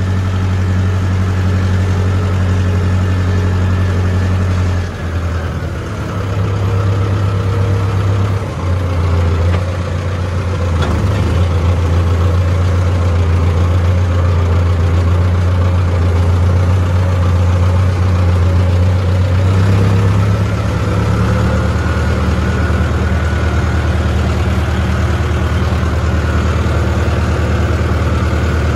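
Farm tractor's diesel engine running steadily under way, heard from the driver's seat. The engine note dips and shifts briefly about five and eight seconds in, and changes again around twenty seconds in.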